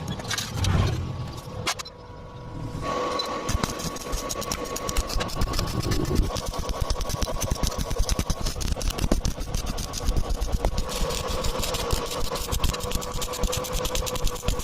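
Electric arc welding on a pipe: a dense, rapid crackle that starts about three seconds in and keeps going, over a steady high hum.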